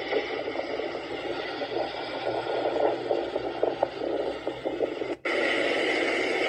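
Steady crackly noise, heard as if played back through a speaker. It drops out for an instant about five seconds in and comes back steadier and brighter.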